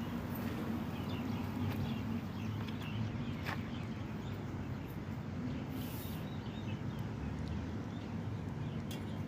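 Steady low hum with scattered faint high chirps and a sharp click about three and a half seconds in.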